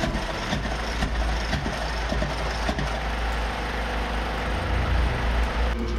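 Steady low mechanical rumble of forge equipment running, with a few faint knocks as the red-hot steel bar is handled on the anvil.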